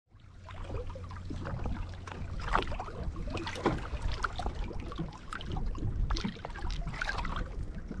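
Choppy, wind-blown water slapping and splashing beside a boat, with a low wind rumble on the microphone, as a hooked trout thrashes at the surface on a topwater plug. The sound fades in over the first half second.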